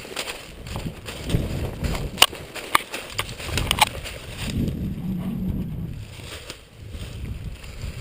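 Rustling and crunching of a player moving through brush close to the microphone, with a few sharp clicks or snaps about two to four seconds in.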